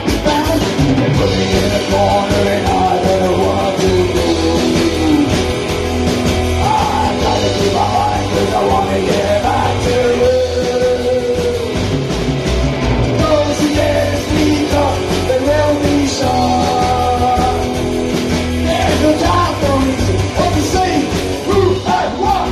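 Live psychobilly band playing loudly: upright bass, electric guitar and drums, with a voice singing over them.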